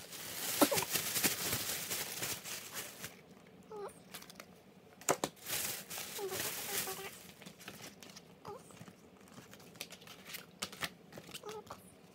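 Plastic shopping bag crinkling and rustling as things are pulled out of it, in two spells of a few seconds each, about a second in and again about five seconds in.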